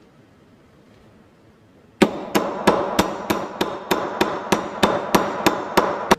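A small hammer tapping on metal in a quick, even series of about a dozen strikes, roughly three a second, each leaving a short metallic ring; it begins about two seconds in.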